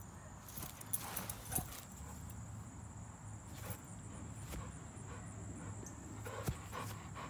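A dog moving about on grass, panting quietly, with soft rustles and a few light clicks.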